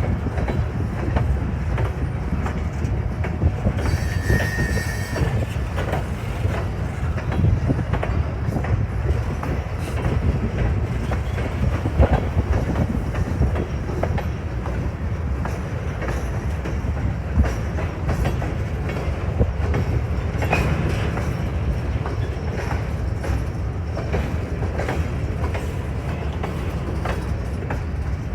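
Grain train rolling past, a steady low rumble of freight cars with many wheel clicks over the rail joints. A short, high wheel squeal about four to five seconds in.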